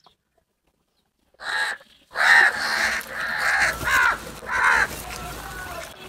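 House crows cawing. Near silence for the first second and a half, then a short call and a run of about four loud caws, with fainter calls going on near the end.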